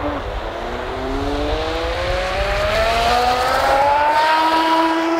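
Electric motor and jet drive of a 12S (about 5000 W) 3D-printed RC jet boat at full throttle: a whine that climbs steadily in pitch and grows louder over about five seconds as the boat speeds up.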